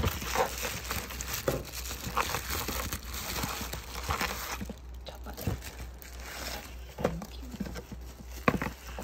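Bubble wrap crinkling and crackling as a wrapped package is handled and lifted out of a cardboard box. The crackling is dense for the first four to five seconds, then turns into scattered rustles and clicks, over a low steady hum.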